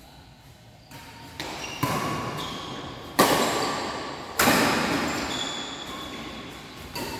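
Badminton rackets striking a shuttlecock in a rally, a string of sharp hits echoing through a large sports hall; the two hits a few seconds in are the loudest.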